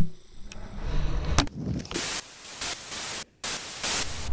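A camera's audio breaking up: a low handling rumble with a few clicks gives way, about two seconds in, to loud hissing static that cuts out briefly and comes back, the sound of the camera being damaged as it falls.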